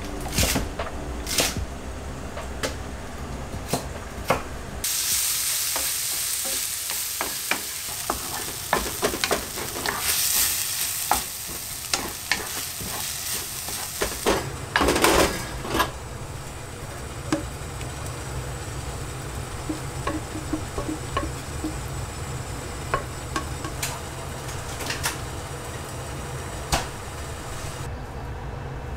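A knife chopping napa cabbage on a wooden cutting board with a few sharp knocks, then the cabbage and minced meat sizzling in a frying pan as a wooden spatula stirs and scrapes through it. The sizzle is loudest at first and settles to a softer hiss over a steady low hum.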